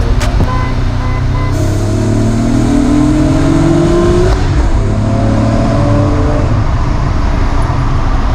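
Nissan Z sports car's V6 engine accelerating hard: the revs climb, drop at a gear change about four seconds in, then climb again.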